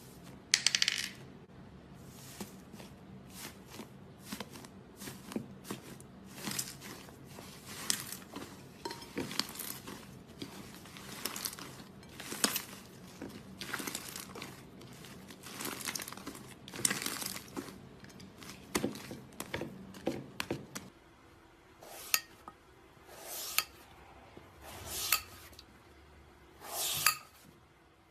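Slime being squeezed and poked by hand, giving an irregular run of sharp clicks, pops and crackles.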